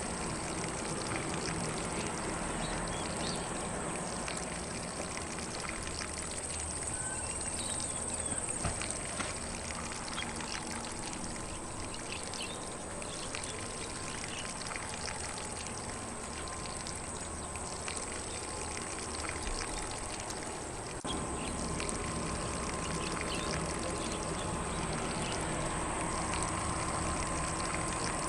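Lawn sprinkler spraying water across grass in a steady hiss and patter, with faint bird chirps scattered through it. The spray gets a little louder about three quarters of the way through.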